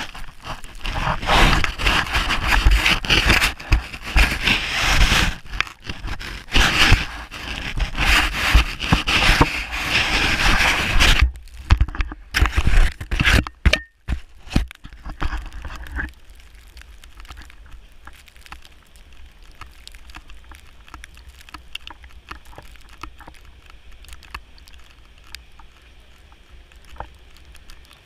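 Snowboard sliding and carving over snow, a loud uneven scraping that surges and fades. It breaks up about eleven seconds in and stops around sixteen seconds, leaving only a faint hiss with small ticks.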